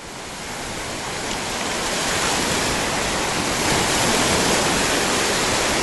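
Ocean surf: a steady rushing wash of breaking waves that swells over the first two seconds or so and then holds.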